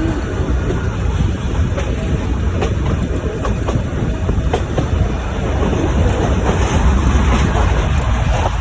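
Nilgiri Mountain Railway toy train running on metre-gauge track: a steady low rumble with irregular clicks and clacks of the wheels and carriages.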